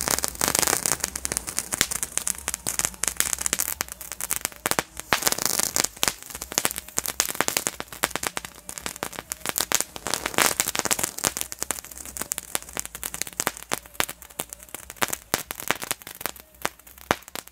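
Feistel Star Kids Category F1 crackling fountain burning: a hissing spray of sparks over dense, rapid, irregular crackling pops. The hiss swells at the start and twice more, about 5 and 10 seconds in.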